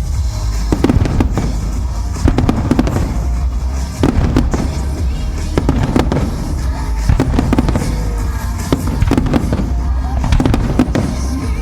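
Fireworks display: aerial shells bursting one after another with sharp bangs and crackle, over a continuous deep rumble.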